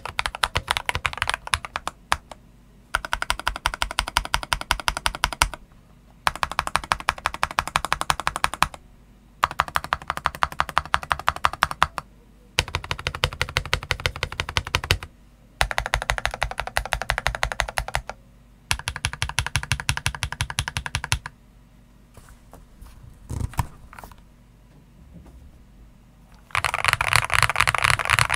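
Typing on a modded Eyooso K-620 hot-swap TKL mechanical keyboard with Akko CS Rose Red linear switches and YMDK PBT keycaps, dampened with hot-glued pennies, a layer of velvet and two layers of Tempest mod, and with plumber's-modded stabilisers. The typing comes in runs of two to three seconds with short pauses between. Only a few scattered key presses sound for a few seconds before a last loud run near the end.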